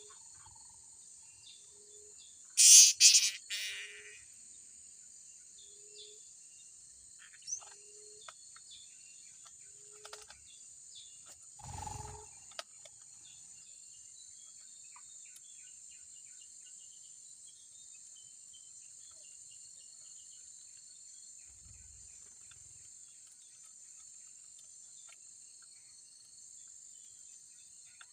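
Steady high insect buzzing, with a burst of loud, shrill bird calls about three seconds in and scattered faint chirps. A soft low note repeats about once a second for the first twelve seconds.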